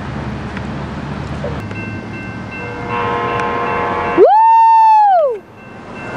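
K5LA air horn on a Coaster commuter train's leading cab car sounding for a grade crossing. A steady chord comes in about three seconds in, then one very loud blast swells up, holds for about a second and drops away, over a low rumble.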